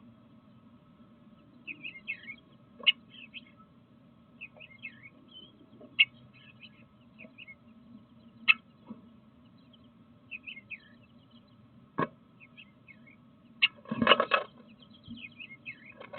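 Small songbirds chirping in short, repeated calls, with several sharp taps or knocks scattered through. About 14 seconds in there is a loud scuffling rustle, all over a faint steady hum.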